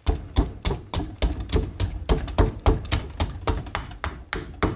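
Carving axe chopping at a green black walnut branch braced on a wooden chopping block: quick repeated chops, about four a second, each with a dull thud from the block, hewing off bark and wood.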